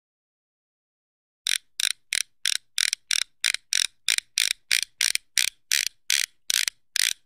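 An end-screen sound effect of short, sharp clicks in an even run, about three a second, beginning about a second and a half in.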